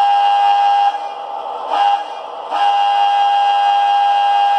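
Sampled Wabco AA-2 single-note air horn played by a Tsunami sound decoder through a model locomotive's small speaker. One steady pitch sounds in a long blast that stops about a second in, a short toot just before two seconds, and another long blast from about two and a half seconds on.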